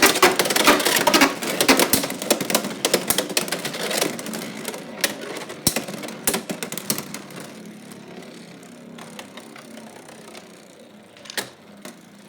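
Two Beyblade X spinning tops, Dran Sword and Hells Scythe, clashing and scraping in a plastic stadium just after launch: a rapid clatter of hits at first, thinning out after a few seconds into a fainter whir of spinning with only occasional clicks as the tops slow, then a couple of sharp single knocks near the end.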